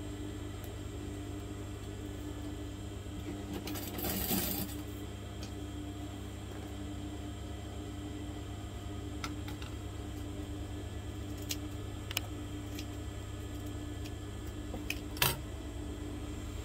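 Steady low hum of a sewing machine's running motor, not stitching. A brief rustle of fabric comes about four seconds in, a few light ticks follow, and there is a sharp click near the end.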